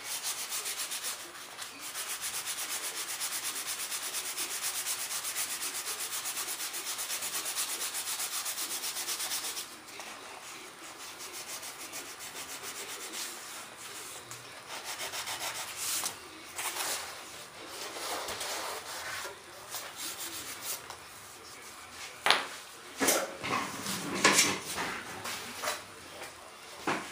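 Sandpaper rubbing on a thin wooden hinge strip in fast, steady strokes for about the first ten seconds, then slower, scattered strokes. A few sharp knocks and handling sounds near the end are the loudest part.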